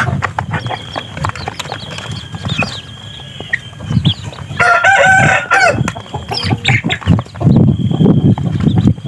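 A flock of young chickens pecking at feed in a tray: many quick clicks of beaks on the grain and tray, with short high peeps and clucks. About halfway through, a rooster crows for about a second.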